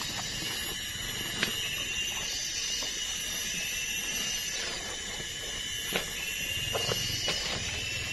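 Forest insects keep up a steady, high-pitched buzzing chorus, with a few sharp clicks or snaps.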